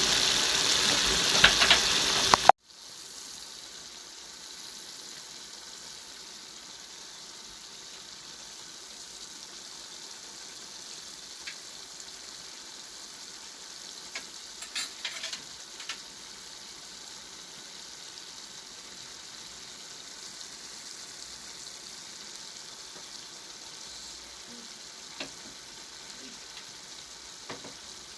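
Food sizzling softly and steadily in a frying pan, with a few light clinks of a utensil against the pan about halfway through. It opens with a couple of seconds of louder rushing noise that cuts off abruptly.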